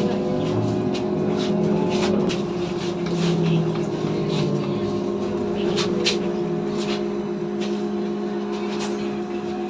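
Interior of a BKM 321 trolleybus: a steady electrical hum from its equipment, with scattered clicks and rattles from the cabin.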